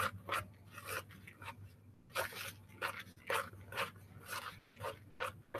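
A spoon stirring and scraping a crumbly mix of yellow cake mix, oats and melted butter in a plastic mixing bowl: short, unevenly spaced scraping strokes, about two a second.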